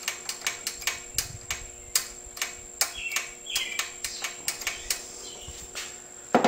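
Light clicking of a Lawn-Boy mower's carburetor throttle and governor linkage being worked back and forth by hand, about four uneven clicks a second; the spring-loaded linkage now moves freely.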